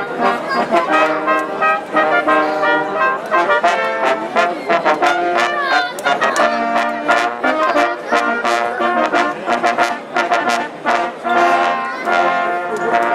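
Brass band playing a tune live, with sustained brass notes moving through a melody and sharp percussive strokes throughout.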